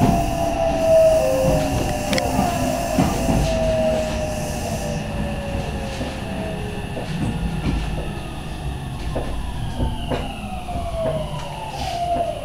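Electric commuter train slowing to a stop, heard from inside the car: the motor whine falls steadily in pitch as the train brakes, over the rumble of the running gear and occasional clicks from the wheels on the rails.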